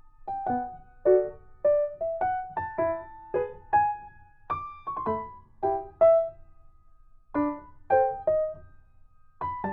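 Soft piano background music: single notes and small chords struck a few times a second, each fading out, with a brief pause about two-thirds of the way through.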